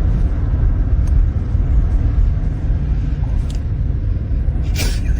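Loud, steady low rumble, with a brief sharper sound near the end.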